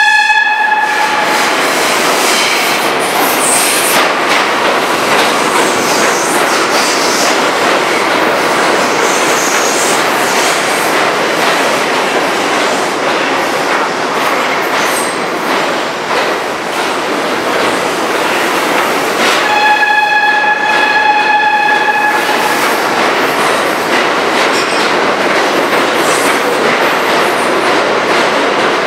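R42 subway train running into an underground station and along the platform, with a loud, steady clatter of wheels on the rails. Its horn sounds twice: once at the start, ending about a second and a half in, and again for about two seconds around twenty seconds in.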